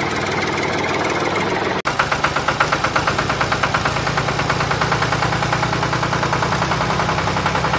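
Engine running with a steady rhythmic knock of about eight beats a second. It breaks off briefly about two seconds in and comes back a little louder.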